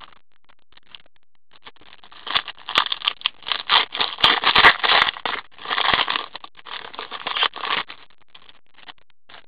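Foil wrapper of a trading-card pack crinkling and tearing as it is ripped open and pulled off the cards. It comes in irregular crackles, starting about a second and a half in and stopping near the end, with a few faint rustles after.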